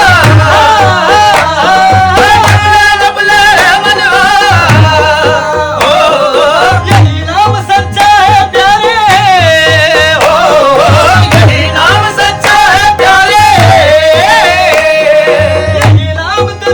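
Qawwali music: a voice singing long, wavering melismatic lines over a regular beat of hand drums.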